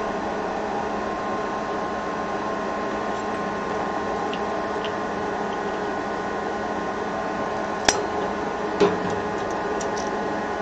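Steady whir of an air blower forcing air through a flexible duct into a small aluminium-melting furnace, with a constant hum. About eight seconds in, two sharp metal clinks come about a second apart as a metal tool knocks against the furnace.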